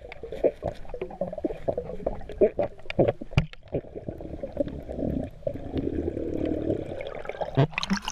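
Muffled underwater water sounds: bubbling and sloshing with irregular clicks and knocks, heard as if through a waterproof camera housing while swimming.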